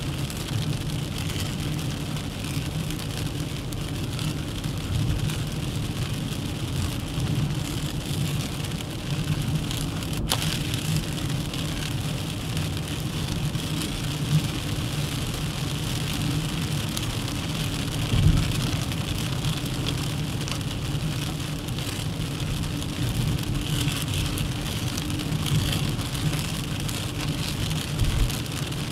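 A Duster 1.3 TCe 4x4 on the move: steady engine and tyre road noise, with a brief thump about two-thirds through and another near the end.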